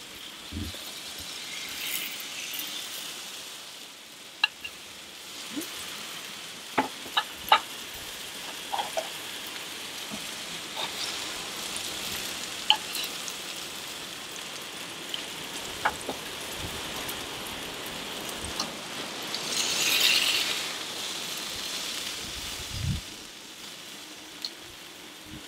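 Wagyu steak sizzling on a gas grill's hot griddle plate, with sharp clicks of metal tongs against the grill and serving plate as the steaks are lifted off. The sizzle swells briefly about twenty seconds in.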